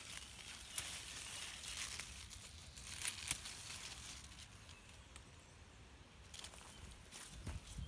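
Spinach leaves rustling and stems snapping as they are picked by hand, with a few sharp snaps, the loudest about three seconds in; quieter in the second half.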